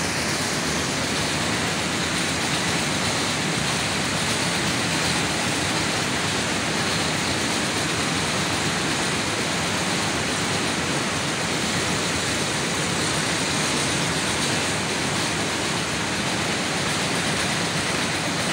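Jute mill machinery running: a steady, even machine noise with no distinct strokes or rhythm.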